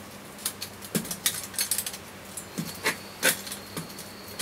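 Collapsible tripod light stand being handled and unfolded: a run of sharp clicks and light rattles from its tubes and joints, loudest about a second in and again around three seconds in.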